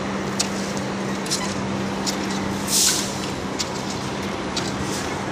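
Construction-site background: a steady machine hum with scattered sharp metal clinks, and a short hiss about three seconds in.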